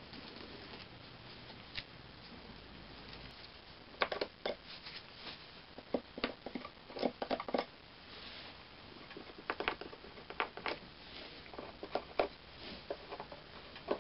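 A small pointed tool and a sponge scraping and clicking over glass mosaic tiles while the wet facing paper is cleaned off the tile faces. Irregular short scratches and taps start about four seconds in, after a faint steady hiss.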